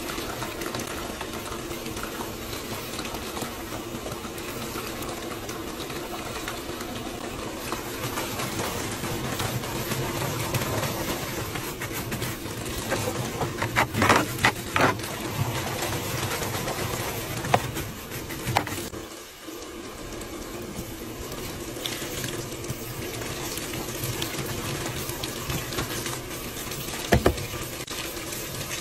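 Water streaming and splashing into a top-loading washing machine's drum as it fills. There is a cluster of knocks about halfway through, a brief lull, and a sharp double knock near the end.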